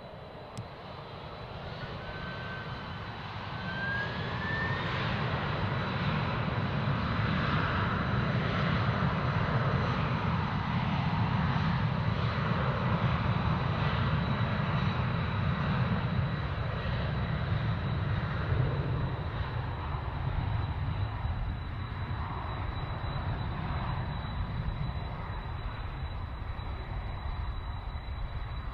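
Jet airliner's engines, building to a loud rumble over the first few seconds as the aircraft passes, then slowly fading. A short rising whine sounds a few seconds in.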